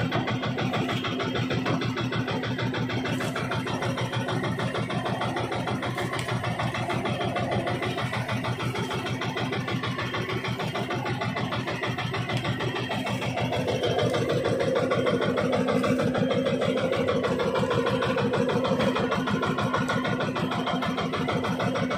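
Outrigger fishing boat's (bangka) motor running steadily with a rapid, even beat; it grows a little louder about two-thirds of the way through.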